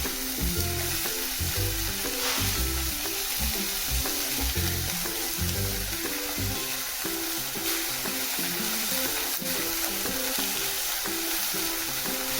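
Food sizzling steadily as it grills, with low background music.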